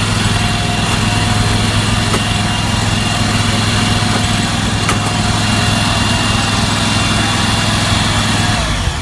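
Small gasoline lawn mower engine running steadily at idle, cutting off abruptly just before the end.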